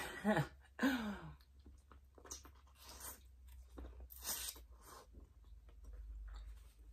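Close-up chewing of boiled, seasoned corn on the cob: wet crunches and mouth clicks from biting into the kernels, starting about two seconds in.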